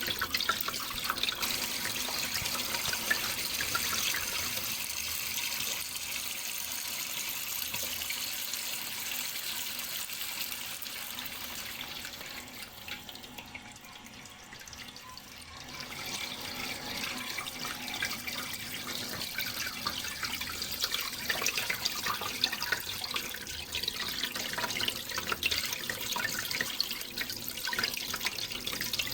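Running water trickling and splashing steadily, with many small drips and splashes; it dips quieter for a few seconds midway, then picks up again.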